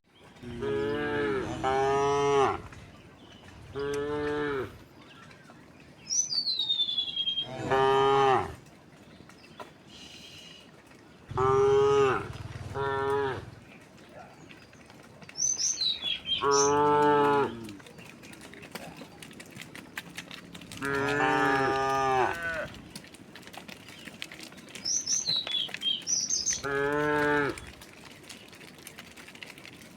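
Cattle mooing: one long, deep moo after another, every few seconds, from different animals of a herd of cows and oxen.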